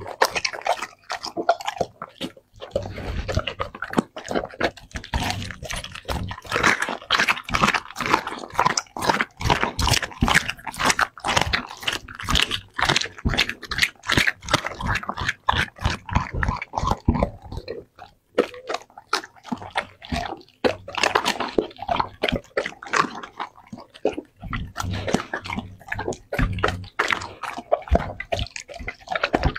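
Doberman eating raw meat and frozen berries off a plate: a steady run of wet chewing and crunching bites, with a short lull about two-thirds of the way through.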